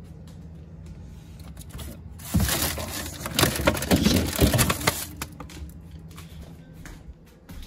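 Plastic bags and containers crinkling and knocking as items are shuffled around on refrigerator shelves, loudest for about three seconds starting some two seconds in, over a low steady hum.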